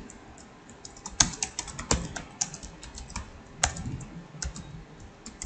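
Typing on a computer keyboard: a quick, irregular run of keystroke clicks that starts about a second in.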